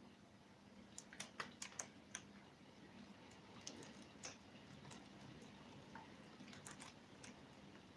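Faint, scattered sharp clicks and taps over near silence, with a quick cluster about a second in and a few more later.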